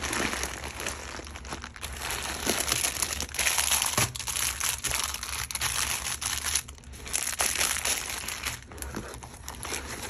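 Crinkling plastic packaging being handled: a holographic bubble mailer, then the clear plastic bags around silicone pop-it fidget toys. The rustling comes in spells with short pauses between them.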